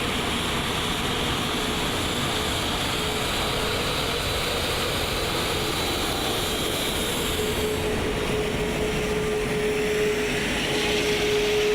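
Steady flight-deck noise of a jet airliner taxiing: an even rush of engine and air noise with a steady hum that grows louder near the end.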